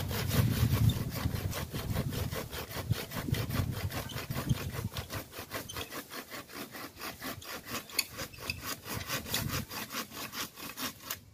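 Small thin-bladed hand saw cutting through a damp branch in quick, even back-and-forth strokes, about five a second, stopping near the end.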